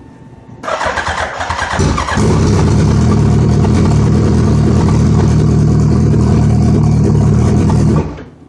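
Suzuki Hayabusa engine being started: a brief rough turning-over, then about two seconds in a loud, steady engine sound that lasts about six seconds and cuts off suddenly. The bike is hard to start, which the owner puts down to fuel pressure dropping as the engine spins over.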